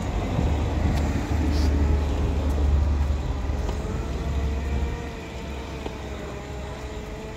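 Road traffic: a motor vehicle's low rumble builds, is loudest about two to three seconds in and fades by about five seconds, as when a vehicle passes. A fainter steady engine hum stays on afterwards.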